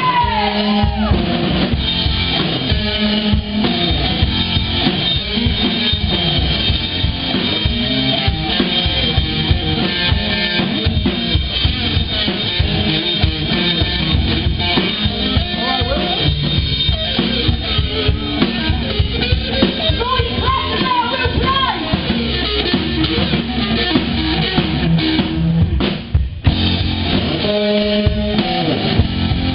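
Live rock band playing loudly: drum kit with bass drum and snare driving the beat under bass guitar and guitar. There is a short break near the end, then the band comes back in.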